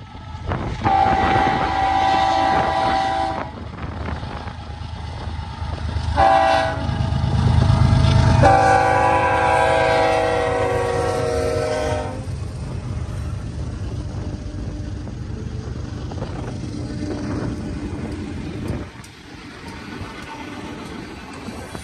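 Freight diesel locomotives' multi-note air horn blowing three times, long, short, long, with the last blast sagging slightly in pitch as it passes. Underneath is the heavy rumble of a string of BNSF diesel locomotives working a train, which drops off near the end.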